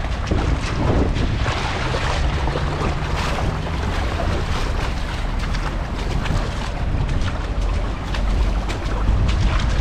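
Wind buffeting the microphone in a low rumble, over the wash of small waves on the beach.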